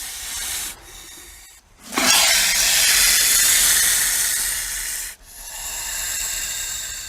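Snake hissing, as a sound effect: a hiss tails off at the start, a long loud hiss comes in about two seconds in and lasts about three seconds, and a softer hiss follows straight after it.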